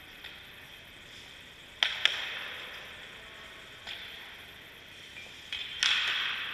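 Hockey pucks shot at a goaltender: a sharp crack of stick on puck and, a moment later, the puck hitting the goalie, echoing off the rink. This happens twice, about two seconds in and again near the end, with a lighter knock in between.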